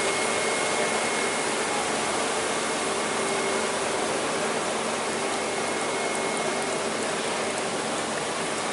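Pump running with water rushing through a hydraulic test rig: a steady rushing noise with two faint steady hum tones.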